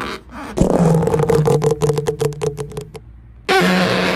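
Comic sound effect: a low, rapidly pulsing buzz like a fart, about two seconds long, then a shorter wobbling pitched burst near the end.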